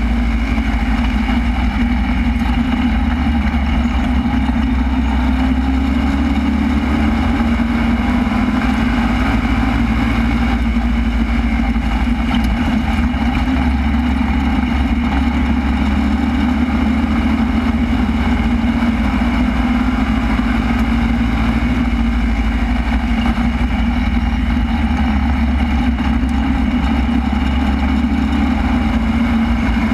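Super stock race car's engine running hard at racing speed, heard from inside the car, a loud steady drone whose pitch rises and falls slightly lap by lap.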